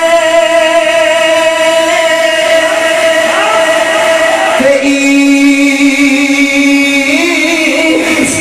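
A man's voice chanting a verse in a drawn-out sung style into a handheld microphone. He holds one long high note, then drops to a lower held note about halfway through.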